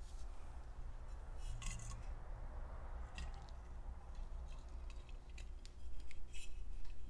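Old glass apple juice bottle being handled and tipped while charred paper scraps are shaken out of it onto a paper sheet: irregular light scraping, rustling and small clicks, busier and louder near the end.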